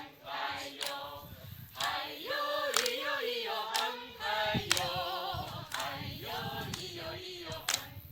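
A group of people singing a song together without accompaniment, with a few sharp hand claps here and there.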